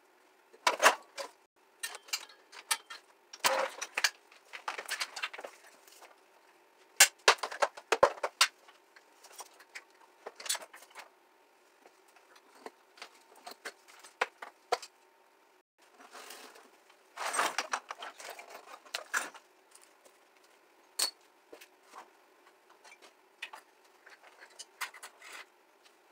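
Irregular clinks, rattles and clatter of metal and plastic parts being pulled and handled while a scooter-style moped is stripped down by hand. The noise comes in short clusters of sharp knocks, over a faint steady hum.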